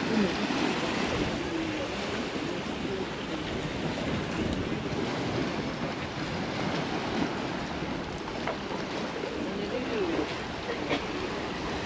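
Steady wash of sea waves on the shore.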